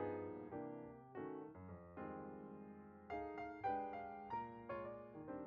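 Background piano music: a gentle melody of single notes and chords played at a steady, unhurried pace.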